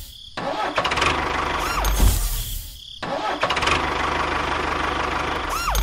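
Tractor engine sound running in two near-identical stretches, cutting out briefly about three seconds in. Each stretch ends with a low thud and a short tone that sweeps up and back down.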